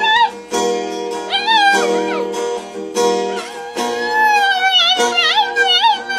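A dog howling along to a guitar, in drawn-out wavering notes that slide up and down, over guitar chords struck every second or two.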